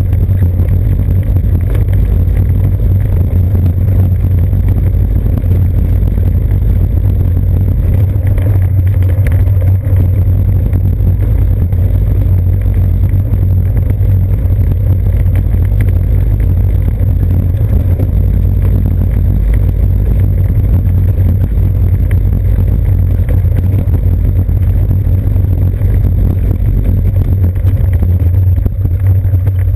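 Steady low rumble of road vibration and wind noise picked up by a GoPro Hero 2 mounted on a bicycle's seat post as the bike rolls over brick-paved and asphalt streets.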